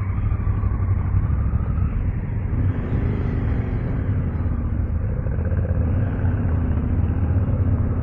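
Yamaha Ténéré 700's parallel-twin engine running with a steady low rumble.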